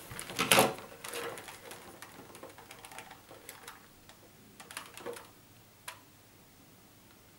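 Small plastic clicks and handling noise from a handheld RJ45 network cable tester and its plugs: a loud click about half a second in, scattered faint ticks after it, and one sharp click near the end.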